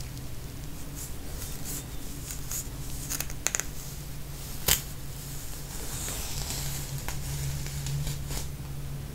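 Dandruff scales being scratched and lifted from the scalp around the ear and nape: scattered short, dry scratches with a sharper click a little under five seconds in, over a steady low hum.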